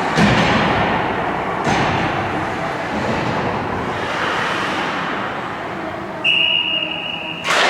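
Ice hockey rink din with a couple of sharp knocks in the first two seconds. Near the end comes a referee's whistle, one steady high blast of just over a second, cut off by a sudden loud burst of noise.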